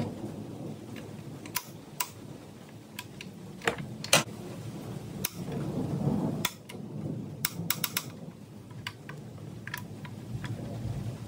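A wrench clicking and clinking against metal as bolts on a power steering pump bracket are worked loose: scattered sharp clicks, with a quick run of about four a little past halfway, over low scraping and handling noise.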